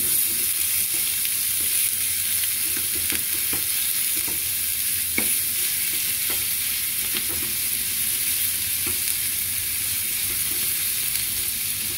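Raw ground beef sizzling in hot oil in a nonstick frying pan while a spoon breaks it up, with scattered scrapes and taps of the spoon against the pan.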